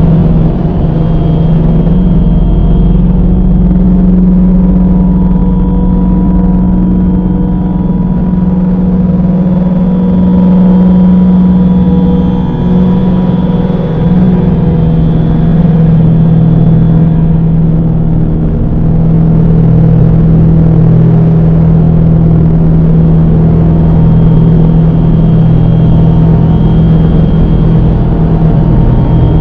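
Dark ambient drone music: a loud, steady low drone with a noisy haze and faint held higher tones, barely changing.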